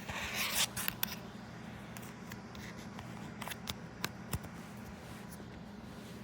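A brief rustle, then scattered light clicks and taps of small objects being handled, over a steady low hum.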